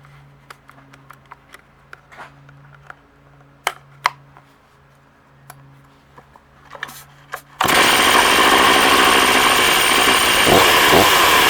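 Stihl 036 Pro two-stroke chainsaw starting suddenly about two-thirds of the way in, after several seconds of scattered clicks and knocks. It then runs loudly, and its pitch dips twice near the end.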